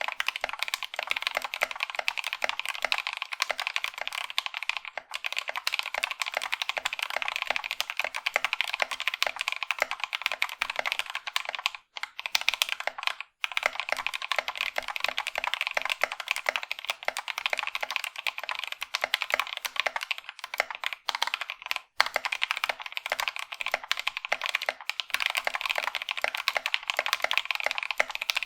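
Fast, continuous typing on a mechanical keyboard fitted with factory-lubed, full-nylon Gateron Caps linear switches, played as a sound test of the switches. The clatter breaks off briefly three times: twice near the middle and once about two-thirds through.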